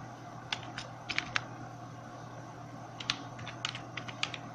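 Computer keyboard being typed on in two short bursts of key clicks: a few about half a second to a second and a half in, then a quicker run from about three seconds in.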